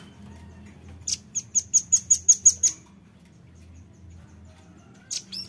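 Velvet-fronted nuthatch calling: a fast run of about nine sharp, high chips, about six a second, starting about a second in, then two more short chips near the end.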